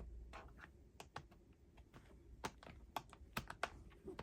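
Faint, irregular light clicks and taps of hands working on a laptop's plastic case while removing its battery.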